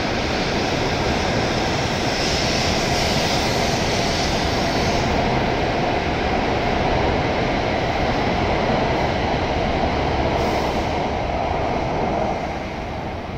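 W7 series Shinkansen train departing, running past at speed with a steady rush of motor and wheel noise; the noise falls away about twelve seconds in as the last car clears.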